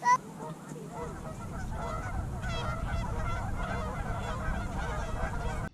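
A flock of geese honking: one loud honk at the start, then many overlapping honks and calls, with a low rumble underneath.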